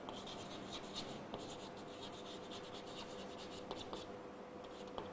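Chalk scratching and tapping faintly on a blackboard as a line of words is written out.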